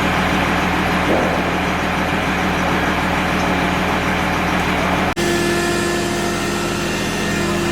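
Engine running steadily at idle, a constant hum under a hiss. An edit about five seconds in switches abruptly to a different steady hum with higher tones.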